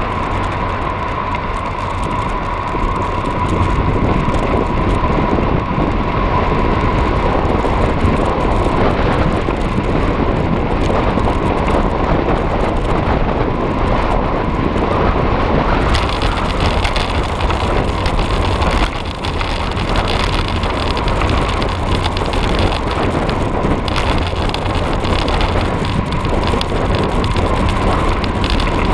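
Wind buffeting the microphone of a cross bike being ridden along a road, over steady tyre and road noise, with a thin constant whine running through it. The noise turns brighter and hissier about sixteen seconds in.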